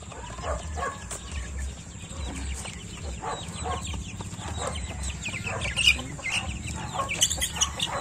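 A flock of caged chicks and young chickens peeping and clucking: many quick, high, falling chirps that overlap throughout, with a few lower clucks.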